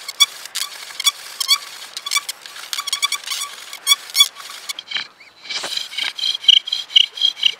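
Bow drill being worked hard: the wooden spindle squeaks with each back-and-forth stroke of the bow, a rhythmic, high, bird-like squeal. It pauses briefly about five seconds in, then comes back faster and louder.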